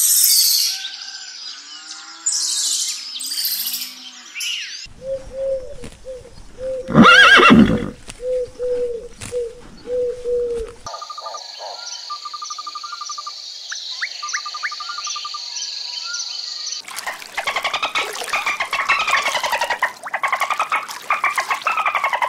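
A run of different animal calls, changing every few seconds: high chirping first, then a call repeated about once a second with one loud cry near the middle, then a steady high buzz with short trills, and a dense stretch of rapid calls near the end.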